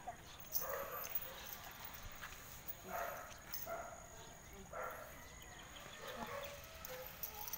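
A small Pomeranian dog gives several short, faint whines spread over a few seconds.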